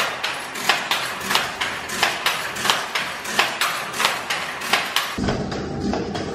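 Wooden handloom clacking in a steady rhythm of about three sharp knocks a second as the weaver works the shuttle and beater. A low rumble joins near the end, and the clacking goes on more faintly under it.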